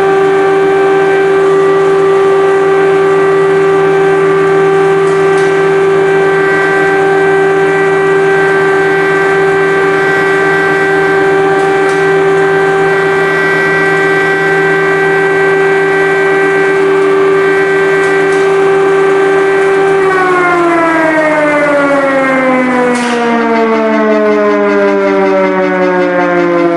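Air-raid siren sounding a long steady wail at one pitch, then winding down with its pitch falling steadily from about twenty seconds in.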